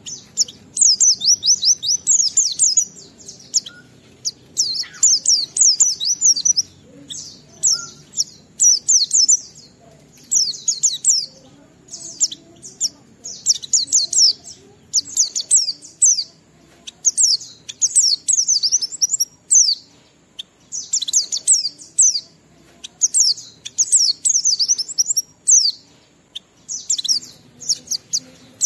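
White-eye (pleci) singing in rapid, high-pitched warbled phrases, each about a second long, repeated again and again with short pauses: the long, continuous 'ngalas' song that keepers play to get other white-eyes singing.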